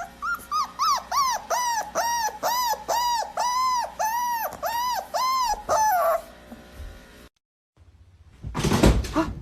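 A dog giving a rapid run of about fifteen high yelping whines, each rising and falling in pitch, about three a second, for some six seconds. After a short pause there is a brief loud noisy burst near the end.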